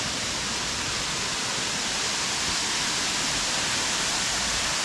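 Waterfall rushing steadily, a full-flow cascade swollen by a week of rain, growing slightly louder.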